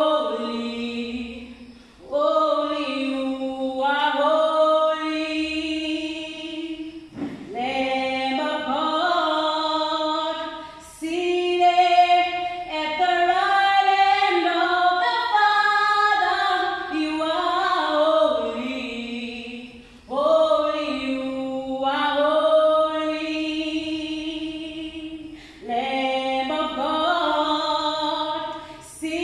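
A woman singing unaccompanied, holding long notes in phrases with short breaks for breath between them.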